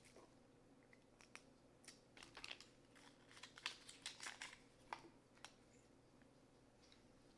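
Near silence with faint, scattered clicks and small rustles of makeup containers and packaging being handled, most of them between about two and five and a half seconds in.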